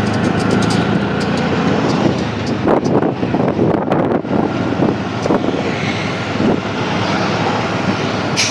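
Road traffic: a vehicle engine running amid passing traffic, with wind rumbling on the microphone.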